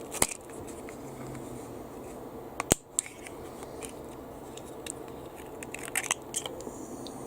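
A few sharp clicks and snaps of small parts being handled at a workbench, the loudest a little before three seconds in and two more near the end, over a steady faint hum.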